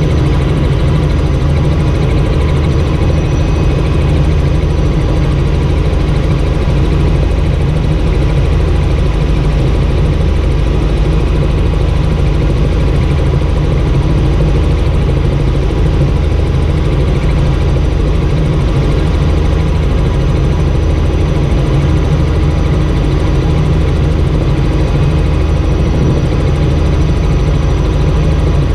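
Helicopter engine and rotor running steadily in flight, heard inside the cockpit as a loud, even drone that does not change.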